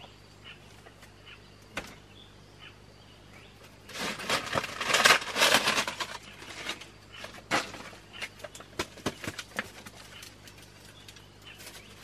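Dry cane strips and a woven bamboo basket being handled. About four seconds in comes a dense rustling and crackling that lasts roughly two seconds, then scattered light clicks and taps.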